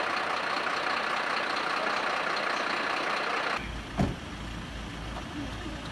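Steady noise of vehicles idling beside ambulances, which drops abruptly a few seconds in to a quieter, low engine rumble, with a single sharp knock just after the change.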